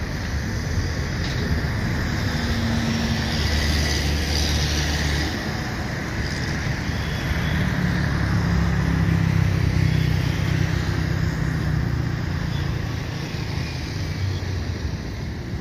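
Jet engines of an Airbus A330-343, Rolls-Royce Trent 700s, at takeoff power as the airliner climbs away: a steady roar with a deep rumble that grows a little louder midway, then fades toward the end.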